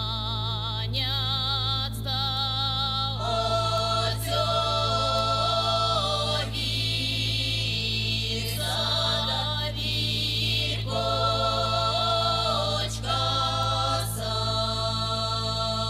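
Women's folk choir singing a Mordovian folk song in several voices, long held notes with a light wavering, sung in phrases separated by short breaks.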